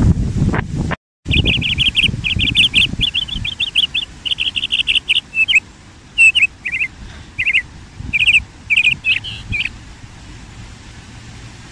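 A small bird singing in rapid runs of high chirps and short trills, pausing between phrases, and falling silent a couple of seconds before the end. Wind rumbles on the microphone at the start and cuts off abruptly about a second in.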